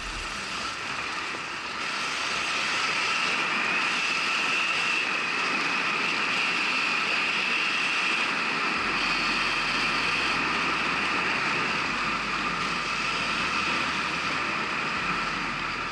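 Electric enduro motorcycle being ridden, its motor giving a steady whine that rises and falls slightly in pitch over noise from the ride.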